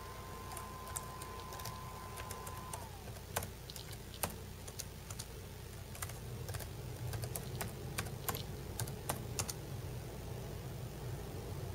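Seagate Laptop Thin SSHD hybrid hard drive seeking loudly: irregular sharp clicks and chatter from the moving read/write heads over a steady low hum. This is the excessive seek noise the owner blames on a manufacturing problem, set off by any tilting of the drive or by heavy activity. A faint steady whine drops away about three seconds in.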